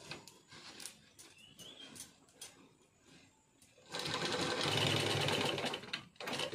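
Romer sewing machine driven by an add-on electric motor, running fast for about two seconds as it stitches through quilted cloth. It starts about four seconds in, after a few soft clicks and rustles of the cloth being handled.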